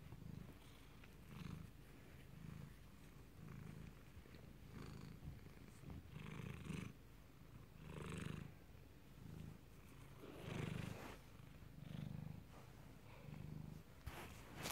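Domestic cat purring, swelling and fading about once a second with each breath in and out.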